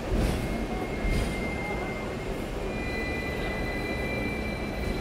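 Hong Kong double-decker electric tram running on street rails, heard from the upper deck: a steady rumble with two knocks in the first second, and a thin high squeal from the running gear that starts about half a second in and shifts slightly in pitch past halfway.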